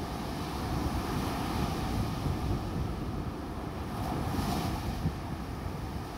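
Small surf waves breaking and washing up a sandy beach, with wind buffeting the microphone as a low rumble. A wash of surf swells briefly about four seconds in.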